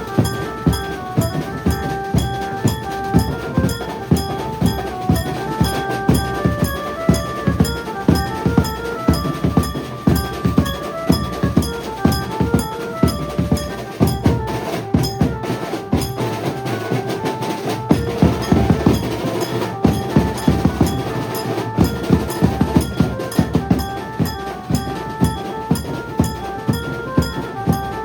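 Maharashtrian banjo band playing: an amplified Indian banjo picks out a stepping melody over loud, driving drumming with bass drum and snare.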